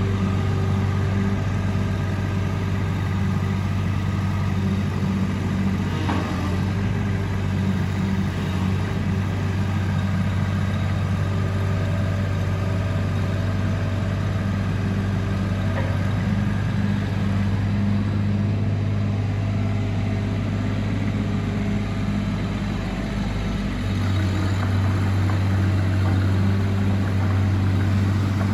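Bobcat 323 mini excavator's diesel engine running steadily while the boom, bucket and swing are worked. The engine note dips briefly about three-quarters of the way through.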